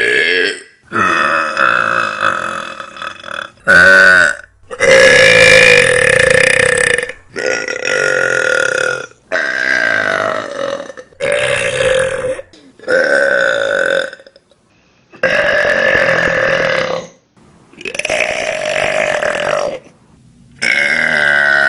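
A woman burping over and over: about eleven long, loud, drawn-out burps in a row, each lasting one to two seconds, with short pauses between them.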